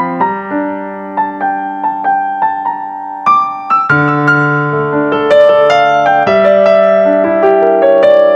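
Background music on piano, note-by-note at first and turning to fuller, sustained chords about four seconds in.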